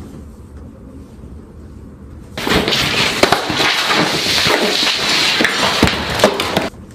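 A sudden loud crash about two seconds in, then about four seconds of dense cracking, shattering and spraying noise, as of a large glass panel bursting with water, that cuts off abruptly.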